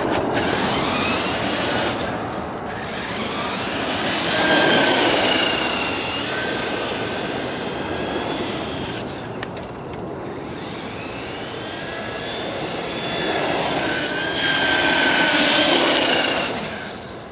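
Traxxas E-Maxx electric RC monster truck driving on asphalt: its motors whine and rise in pitch as it accelerates, loudest in two runs, about four seconds in and again about fourteen seconds in, over a noisy bed of tyre and drivetrain noise.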